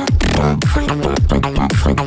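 Dubstep-style beatboxing: deep falling bass drops about twice a second, with dense percussive mouth sounds over them.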